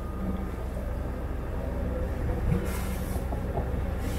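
Sailing yacht's inboard engine running at a steady drone while motoring in calm water, with a short hiss about three seconds in.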